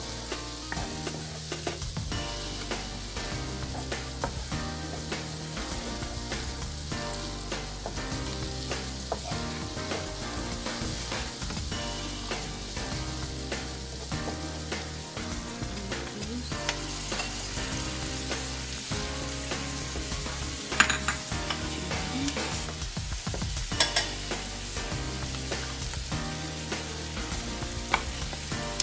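Chopped onion and turmeric sizzling in hot oil in a nonstick wok, stirred and scraped with a wooden spatula. There are a couple of sharp knocks past the middle.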